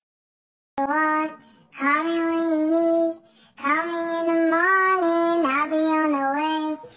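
A brief silence, then a high solo voice singing long held notes without accompaniment, in three phrases separated by short breaths.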